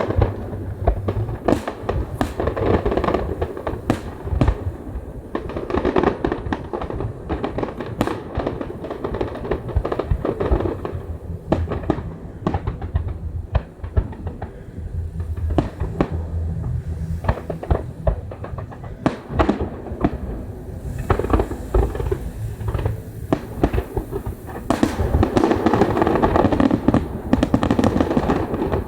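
Fireworks bursting in a quick run of sharp bangs and crackles, thickening into a dense barrage near the end, with music playing underneath.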